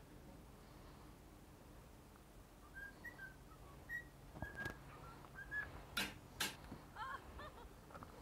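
Cockatiel whistling a string of short, high notes, with two sharp knocks about six seconds in.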